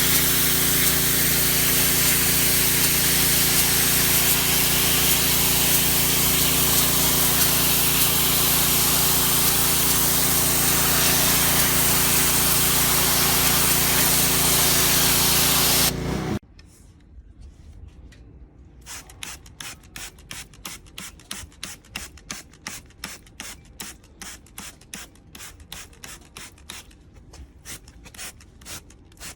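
Pressure washer running: a loud, steady spray hiss over a constant engine or pump hum, which cuts off abruptly about sixteen seconds in. After it comes a much quieter run of short rhythmic strokes, several a second.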